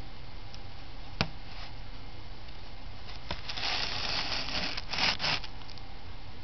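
Chinchilla working its mouth at the metal spout of its water bottle: a couple of sharp clicks, then a scratchy rasping about three and a half seconds in and a louder burst of it near the five-second mark.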